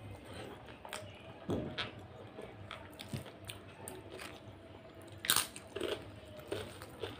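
Close-miked eating sounds: chewing a mouthful of soft rice congee, then crunching potato chips in irregular snaps, the loudest crunch about five seconds in.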